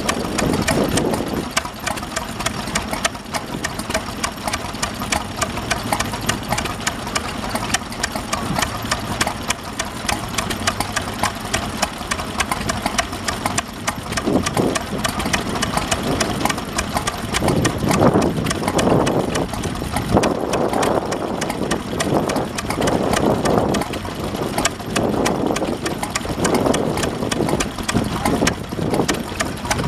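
Vintage stationary engine running steadily with an even, rapid mechanical beat.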